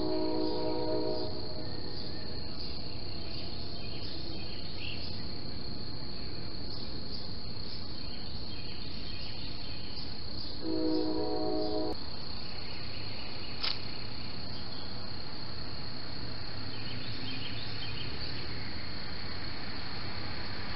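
Outdoor background noise with a steady high-pitched insect-like trill. A brief pitched tone sounds at the start, and again for about a second some eleven seconds in, and a single click comes just before the fourteen-second mark.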